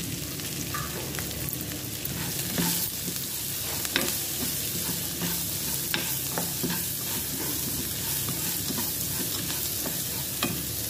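Chopped onions, green chillies and cashews sizzling in hot oil in a nonstick kadai while a plastic spatula stirs and turns them, a steady frying hiss with occasional sharp taps and scrapes of the spatula on the pan.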